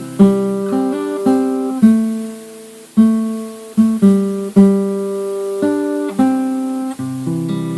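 Acoustic guitar playing an instrumental passage between sung verses of a hymn: a string of plucked notes and chords, each ringing and fading before the next.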